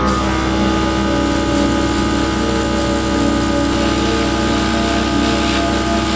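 Airbrush compressor running steadily, with the hiss of air and paint spraying from the airbrush.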